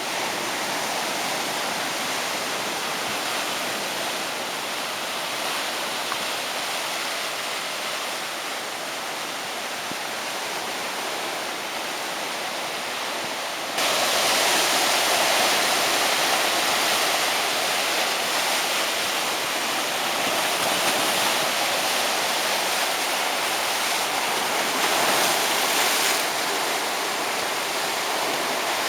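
Rough sea waves breaking on a beach: a steady wash of surf, which turns abruptly louder about halfway through.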